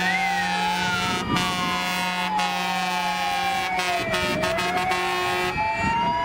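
Fire engine sirens wailing as a convoy of fire trucks drives past, several sirens rising and falling in pitch out of step with one another. A steady horn-like tone sounds under them and cuts off about five and a half seconds in.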